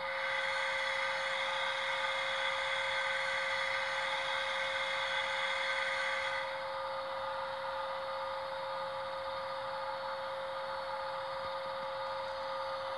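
Sound decoder in a model E403 electric locomotive playing the standing loco's electrical equipment through its small speaker: a steady humming tone with a higher whine over it that cuts off about halfway through, leaving the hum alone.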